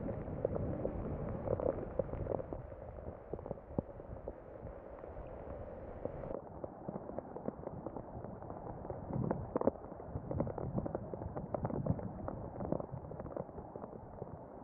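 Thunderstorm noise: a steady rushing sound with scattered crackles, and a few low rumbles swelling in the second half.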